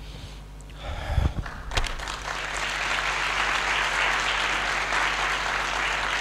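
Audience applause, building about two seconds in and then continuing steadily, with a few low thumps just before it begins.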